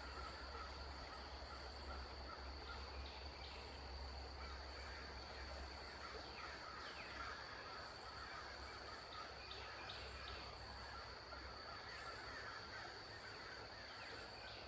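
Faint creekside ambience: insects, likely crickets, trilling steadily, with a few bird calls and chirps, some sliding downward in pitch, over a low background rumble.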